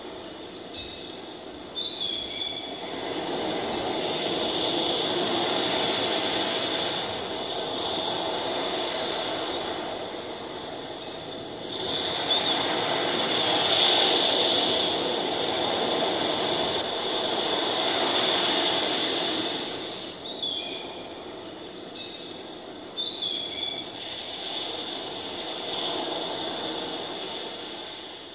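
Recorded sea surf: waves rushing in and falling back in long swells, with short bird calls near the start and again about twenty seconds in.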